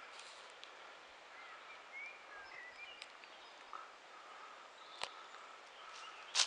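Quiet woodland ambience with faint short bird chirps, a few small clicks, and a louder sharp crack at the very end.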